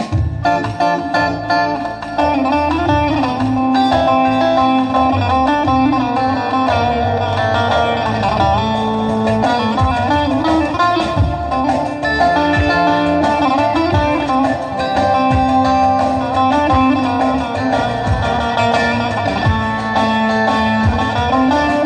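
Electric bağlama, a long-necked Turkish lute, played in a continuous instrumental melody with quick plucked notes.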